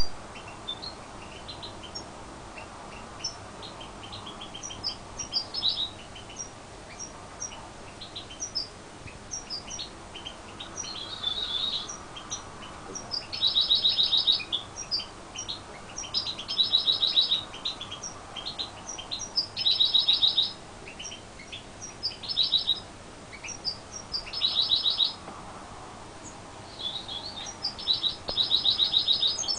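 A first-year goldfinch × canary hybrid (mule) singing: quick high twittering and chipping notes, broken every few seconds by loud trilled rolls that grow more frequent in the second half.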